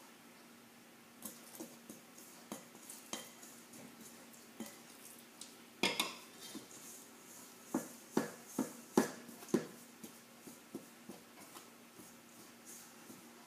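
Chopsticks stirring flour and water into dumpling dough in a stainless steel bowl, clicking and scraping against the metal at irregular moments. The sharpest knock comes about six seconds in, and a quick run of knocks follows between about eight and ten seconds in.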